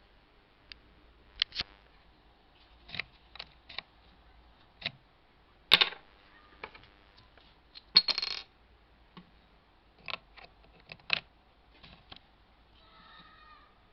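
Irregular sharp clicks and light clatter of small hard objects being picked up and handled on a desk, such as a USB flash drive, with the loudest knocks about six and eight seconds in, the second followed by a short scrape.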